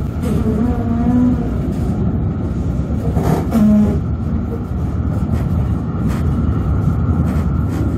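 Stadler Variobahn low-floor tram running, heard from inside the passenger cabin: a steady rumble of wheels on rails with a steady whine over it. Short pitched sounds rise out of it just after the start and again about three seconds in.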